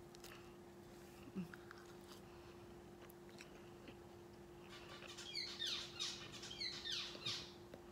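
Faint chewing and mouth clicks, then, from about five seconds in, a caged pet bird gives several quick runs of sharp chirps that fall in pitch; the chirps are the loudest sound. A steady low hum runs underneath.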